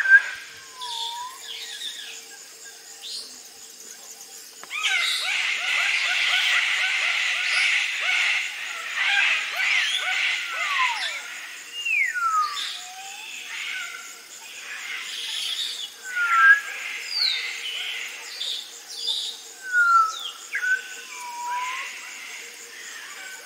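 Parrot calls: short whistled calls that fall in pitch, repeated at irregular intervals, with a stretch of dense, harsh screeching from about five to eleven seconds in.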